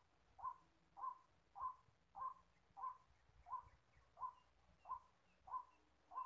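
White-breasted waterhen's call, a short 'kwak' note repeated at an even pace of about three every two seconds.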